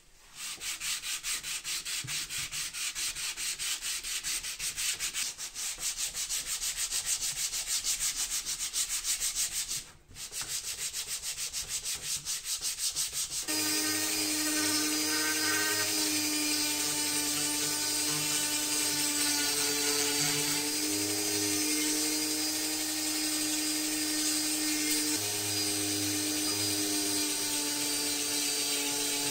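A steel blade scraping the old finish off a wooden bellows board by hand, in quick, even strokes with a short pause about ten seconds in. About halfway through, a handheld rotary tool with a small sanding drum starts and runs with a steady whine as it sands the board's edge.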